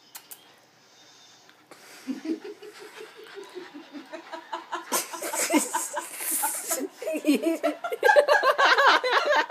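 People laughing. The laughter starts about two seconds in and builds into loud, hearty laughter near the end.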